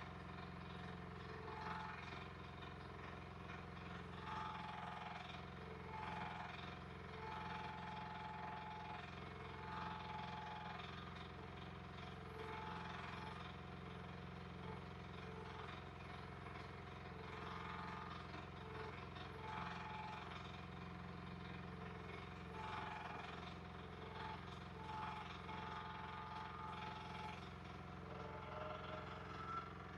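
Engine of a compact earthmoving machine running steadily under work, with short higher-pitched whines coming and going over it.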